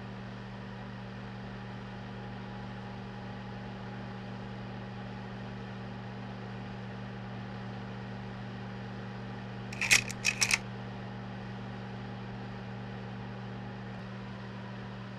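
Steady projector hum with a low, even drone. About ten seconds in comes a quick burst of four or five mechanical clicks lasting under a second, the sound of the projector advancing to the next slide.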